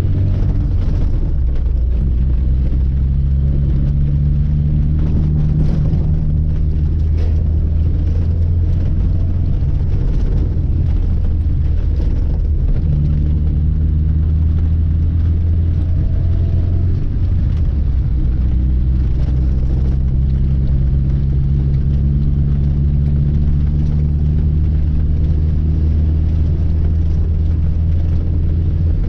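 Lada 2106's inline-four petrol engine running steadily as the car is driven, its note shifting in pitch a couple of times around the middle.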